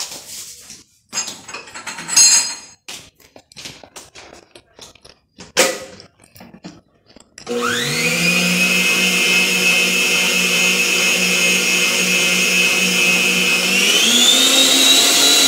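Philco stand mixer beating cake batter: a few knocks and clicks, then about halfway through its motor starts with a rising whine and runs steadily. Near the end it is switched up to a higher speed and the pitch rises.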